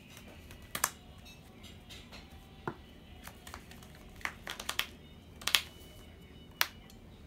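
Sleeved trading cards being handled and laid down on a playmat: a few short, sharp clicks and slaps at irregular moments, a quick cluster a little past four seconds in and the loudest about five and a half seconds in.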